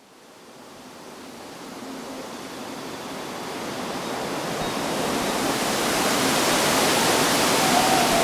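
Steady rushing hiss of heavy rain, fading in from silence and growing steadily louder.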